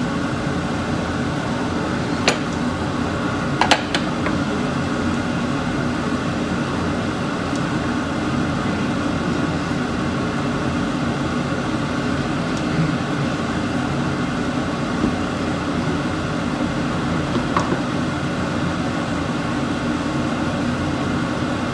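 Steady whirring hum of a kitchen fan running over the stove, with a few sharp metallic clinks of a pot lid about two and four seconds in.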